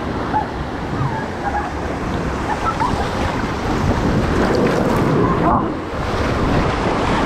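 Rushing, splashing water of a river rapids ride, heard from a tube sliding down the channel, with wind and water hitting the microphone. About five and a half seconds in, a splash washes over the microphone and briefly dulls the sound.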